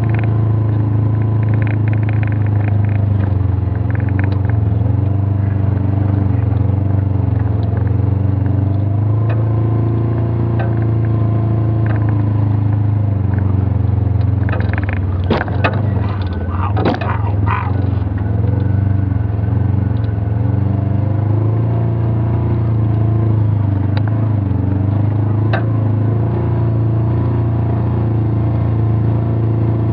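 Off-road vehicle's engine running steadily at low speed over a sandy, rocky dirt track, heard from inside the cab. A short cluster of knocks and rattles comes a little past halfway.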